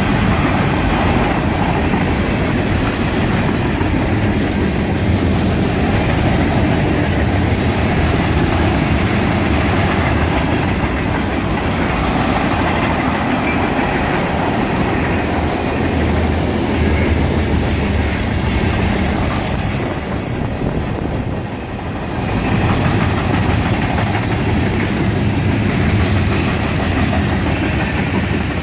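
A freight train rolling past, a steady rumble of wheels on the rails. It eases off briefly about three-quarters of the way through.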